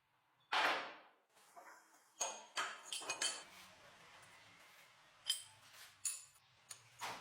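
Steel pieces clinking and clanging against each other and against metal, a series of separate knocks with brief high ringing. The loudest and longest comes about half a second in, a quick cluster follows a couple of seconds later, and a few single clinks come near the end.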